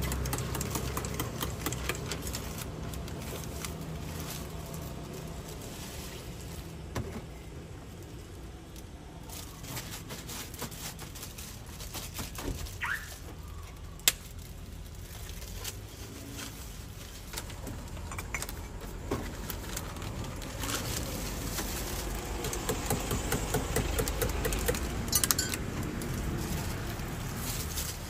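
Steady low background hum of traffic with scattered light clinks, knocks and rustles of glassware and plastic bags being handled, and one sharp click about halfway through.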